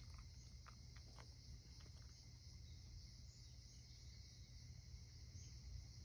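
Near silence: room tone with a faint steady high-pitched hiss, and a few faint clicks in the first two seconds.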